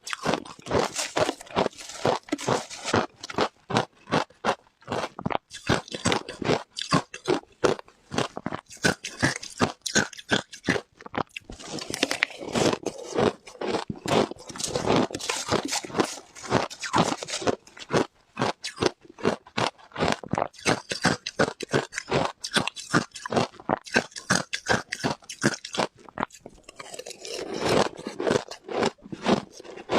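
Ice being bitten and chewed with loud, rapid crunching, several crunches a second, close to the microphone.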